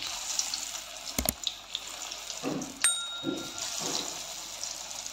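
Batter-coated potato strips deep-frying in hot oil in a kadhai, a steady sizzling hiss with fine crackles as more strips are dropped in. A click comes about a second in, and a short ringing ping comes a little before three seconds.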